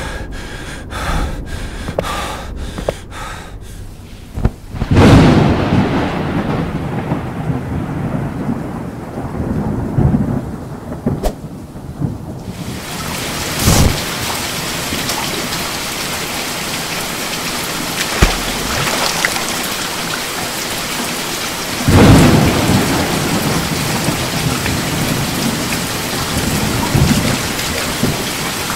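Thunderstorm: a loud clap of thunder about five seconds in rumbles away, then heavy rain starts pouring steadily a little before halfway. Another loud thunderclap comes about two-thirds of the way through, over the rain.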